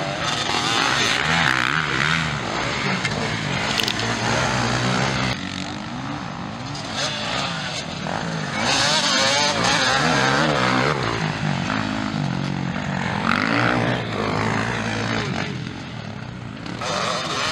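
Motocross bikes racing past on a dirt track, engines revving up and dropping off repeatedly as the riders accelerate and shift, loudest about nine to eleven seconds in.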